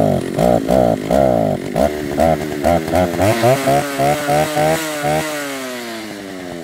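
Stihl 08S two-stroke chainsaw engine running and being revved in repeated blips, its pitch rising and falling two or three times a second. Toward the end the blips slow and the engine winds down to a lower speed.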